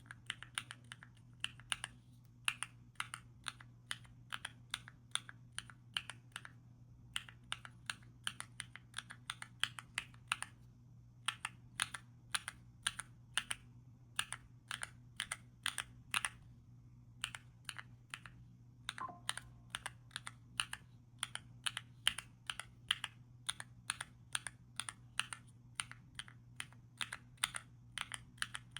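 Keys on a small mechanical keyboard pad with Epomaker Zebra switches being typed in quick runs of several strokes a second, broken by short pauses, with a faint steady hum underneath.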